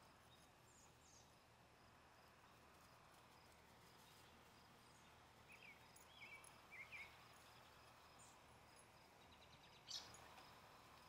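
Near silence: a faint outdoor background hiss, with a few short, faint high chirps a little past the middle and a single brief click near the end.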